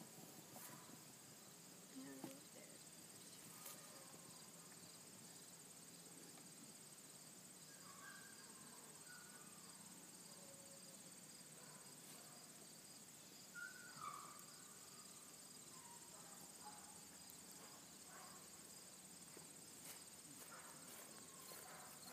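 Faint, steady high-pitched trilling of insects in a grass field.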